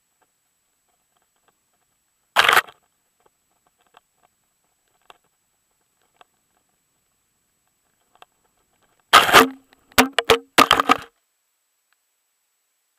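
Action camera taking knocks: one loud bump about two and a half seconds in, faint ticks, then a cluster of loud knocks and scrapes from about nine to eleven seconds as the camera is struck off its mount and tumbles onto the forest floor.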